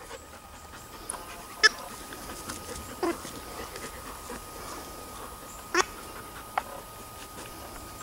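About four short, sharp squeaky sounds, the first about a second and a half in and two more near the end, as an Alaskan Malamute puppy noses and mouths a plastic toy ball in the grass.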